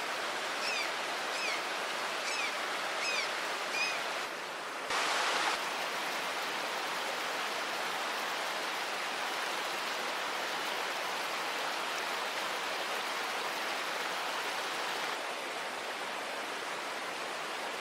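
River water flowing steadily over a rocky bed. Five short chirps sound in the first four seconds, and the rush briefly drops then swells louder about five seconds in.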